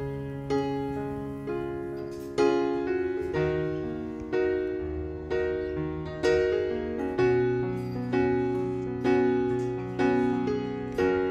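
Background piano music: gentle chords struck about once a second, each dying away over a changing bass line.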